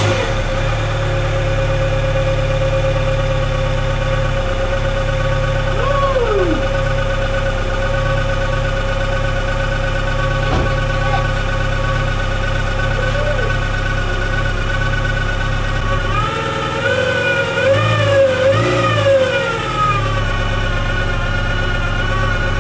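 VW Golf Mk3 engine idling just after starting up, with a steady whine from the belt drive: belt noise later traced to a missing bolt on the alternator bracket. Near the end the whine wavers up and down in pitch a few times.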